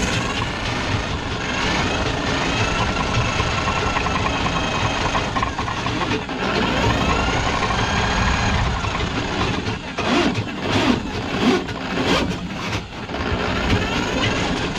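Electric drum-type drain-cleaning machine running, its spinning cable working into a kitchen sink drain line clogged with grease. The machine runs steadily with wavering squeals, and from about ten seconds in there is repeated knocking and clattering.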